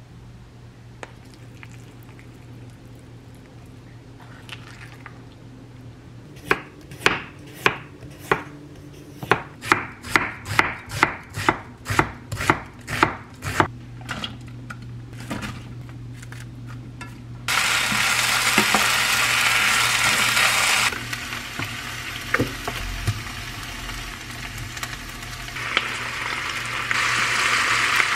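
A run of about twenty sharp chopping knocks, two or three a second, as green onion and red chili are chopped. Then the chopped vegetables go into hot oil in the pan and sizzle loudly for a few seconds, with a shorter sizzle near the end, over a steady low hum.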